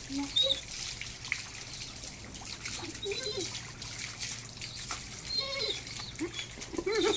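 Saint Bernard making several short whining calls of protest while being bathed, which he dislikes. Water trickles and splashes underneath.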